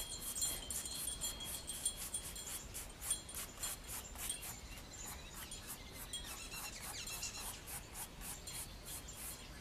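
Wide, worn paintbrush scrubbing acrylic paint across a painting board in a quick series of short strokes, about two to three a second.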